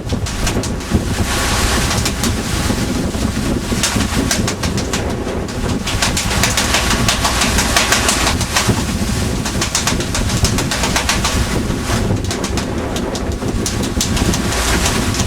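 Fishing boat at sea: a steady engine drone under a dense rush of wind and water noise.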